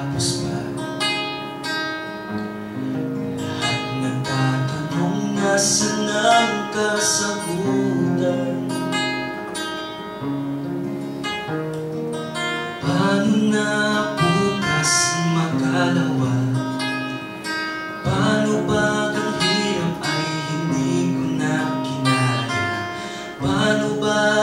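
Live acoustic song: an acoustic guitar strumming under sung vocals in Tagalog, with a cajon keeping the beat.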